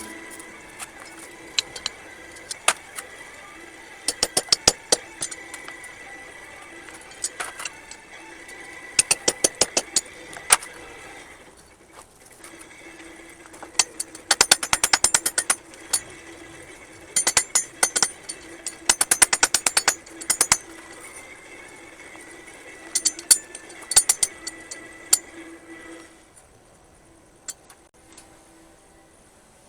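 Hammer striking hot steel on an anvil in bursts of sharp blows, some in quick runs, with short pauses between. A steady hum runs beneath and stops about four seconds before the end.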